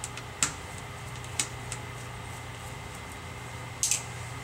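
A few light clicks and taps of a small magnetic-tip screwdriver and tiny screws as the LED panel's mounting screws are taken out of a netbook's screen frame, over a steady low hum.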